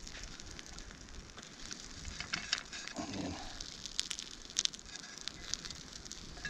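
Small kindling fire of twigs and birch crackling with scattered sharp pops as it catches.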